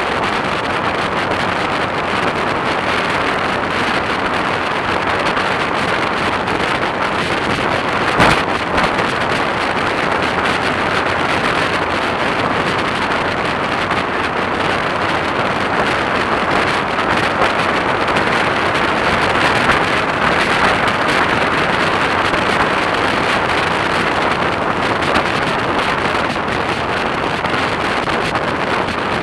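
Steady wind rush on the microphone of a camera mounted on a motorcycle riding at speed, mixed with road noise, with one short knock about eight seconds in.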